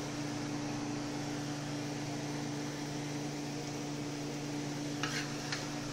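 Steady machine hum with a constant low drone, and two faint light clicks about five seconds in.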